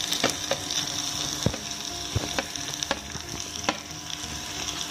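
Onion-tomato masala frying in oil in a pan as raw chicken pieces are tipped in from a bowl: a steady sizzle with scattered crackling pops.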